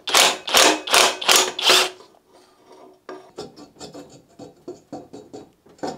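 Hand ratchet wrench worked from under the car: about five loud rasping strokes in the first two seconds, then lighter, quicker ratchet clicks as it is swung in short strokes.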